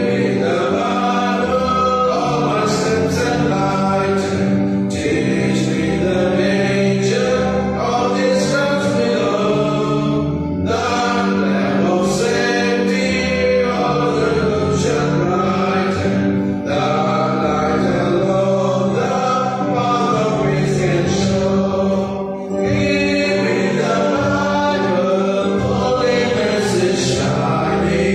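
A gospel hymn sung by a group, led by a man's voice through a microphone and PA, over a steady held accompaniment, with two brief pauses between lines.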